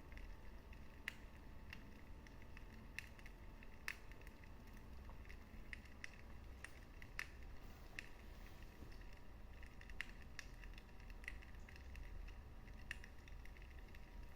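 Wood fire crackling in a fireplace: irregular sharp pops and snaps, about a dozen, over a low steady rumble of the burning.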